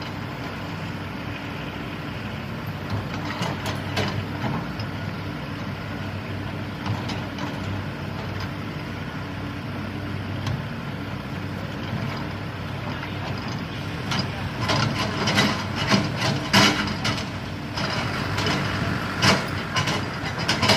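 Caterpillar 320D hydraulic excavator's diesel engine running steadily, with sharp knocks and clatter of the working machine bunched in the last seven seconds.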